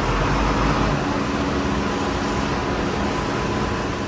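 Diesel bus engine idling close by, a steady even running sound with a hiss over it.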